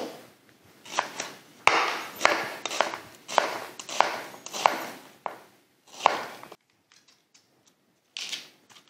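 Chef's knife cutting through a peeled yellow onion onto a plastic cutting board: about ten crisp, crunchy cuts, each ending in a knock on the board, roughly one every half second or so. The cutting stops about six and a half seconds in.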